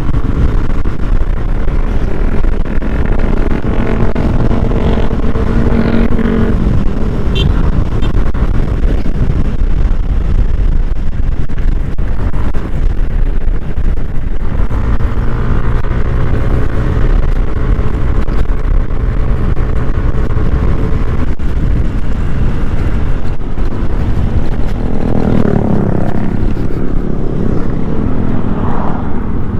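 Yamaha NMAX scooter ridden at speed: steady wind rush over the microphone with the engine's drone underneath, its pitch rising and falling a few times.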